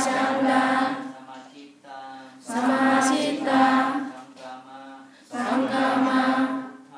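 A group of voices chants a Buddhist recitation in unison, in three short loud phrases. Between the phrases there are quieter stretches of a fainter voice, in a call-and-response pattern.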